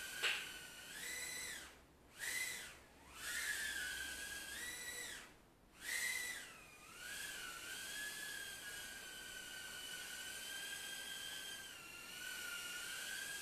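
Furibee F36 micro quadcopter's tiny coreless motors whining high as it lifts off and flies. The pitch surges at takeoff and dips out briefly three times in the first six seconds as the throttle is eased off and back on, then settles into a steady hovering whine.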